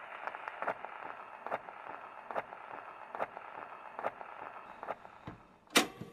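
Steady crackling hiss with a sharp click a little faster than once a second, and one louder click near the end before it fades out.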